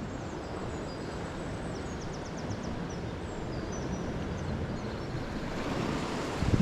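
Steady wind rushing over the microphone outdoors on the coast, with faint, high, short bird chirps and a quick trill a couple of seconds in. The wind swells toward the end.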